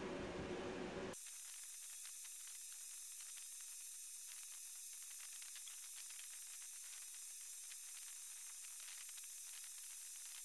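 Engine oil trickling in a thin stream from the crankcase drain into a plastic drain pan: a faint steady hiss with fine irregular ticks.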